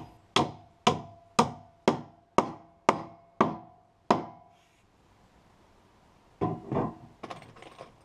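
Hammer driving nails into fir floorboards: eight steady blows about two a second, each with a brief ringing note, stopping about four seconds in. Near the end, a short clatter of a few knocks.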